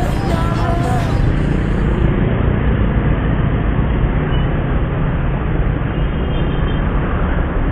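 Steady low rumble of road and engine noise inside a moving car, picked up by a dashcam microphone.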